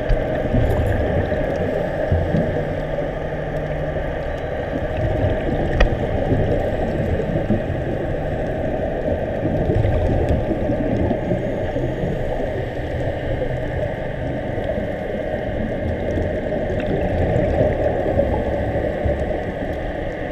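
Steady underwater noise picked up by a dive camera in its housing: a dense low rumble and wash with faint shifting hum, and one sharp click about six seconds in.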